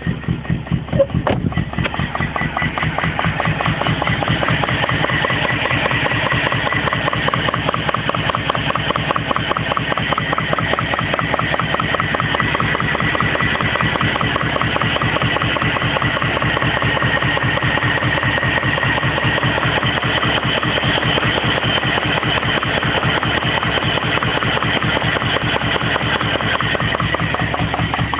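BMW E34 530i engine idling roughly, with a rapid, even pulsing and a knocking said to come from the driver's side of the engine. The owner suspects something got into a cylinder or that the spark plugs are gummed up.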